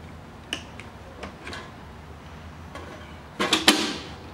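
Hands handling a mini MIG welder and its torch: a few light clicks, then a louder clatter of knocks about three and a half seconds in.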